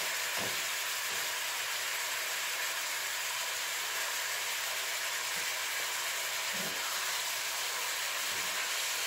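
Slices of beef sizzling steadily in hot lard in a frying pan.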